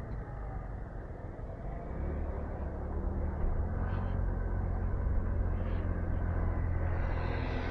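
Low wind and road rumble on the camera microphone of a moving electric scooter, with no engine note; the rumble grows stronger about two seconds in and holds steady.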